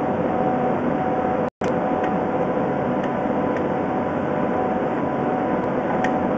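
Steady machine hum and hiss with two faint steady tones and a few light ticks, cutting out for an instant about one and a half seconds in.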